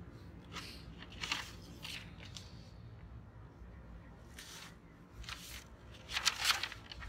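Paper and cardboard rustling as a sheet of paper is pulled from an opened cardboard shipping box by a gloved hand, in short crinkling bursts, loudest near the end.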